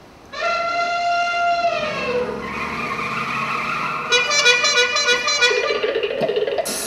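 Car sound effects for a live radio play: a long horn blast whose pitch slides down at the end, then tyres screeching in a wavering squeal about four seconds in.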